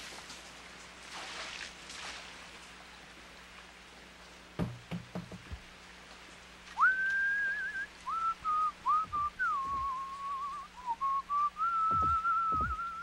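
A person whistling a tune: a single clear note line that steps between a few pitches, starting about seven seconds in and carrying on. Before it come a few short, soft knocks over a faint hiss.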